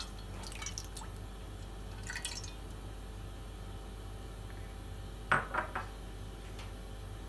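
Cooking oil being poured into a cooking pot: faint dripping and light glassy clinks, with a brief cluster of louder clinks about five seconds in.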